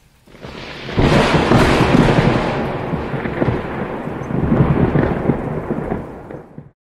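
Flash-flooded mountain river's torrent rushing past, a loud, deep, continuous rumble with crackling through it. It swells sharply about a second in and cuts off just before the end.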